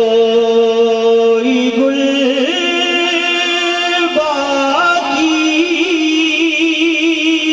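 A man singing a naat, an Urdu devotional poem, into a microphone, drawing out long held notes that step up and down in pitch.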